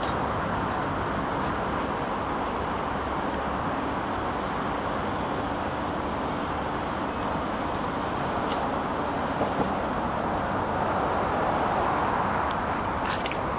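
Steady road traffic noise from cars passing on a city bridge, swelling a little near the end, with a couple of short ticks.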